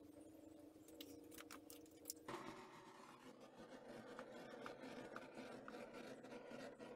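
Near silence: faint room tone with a few soft clicks, switching about two seconds in to a faint steady hiss with light ticks.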